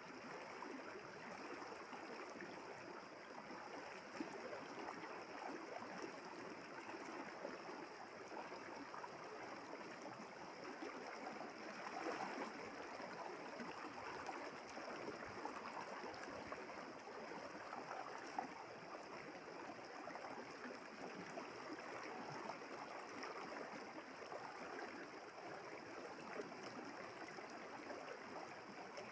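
River water flowing steadily, a continuous babble of moving water.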